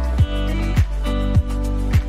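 Background music with a steady beat: a deep, pitch-dropping kick drum about every 0.6 seconds over held bass and sustained melody notes.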